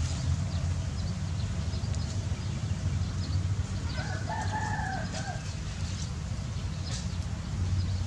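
A rooster crows once, about four seconds in, over a steady low rumble.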